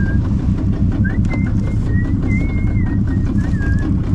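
A steady low rumbling noise with a high, wavering whistled tune over it, a string of short held notes that slide and step between a few pitches.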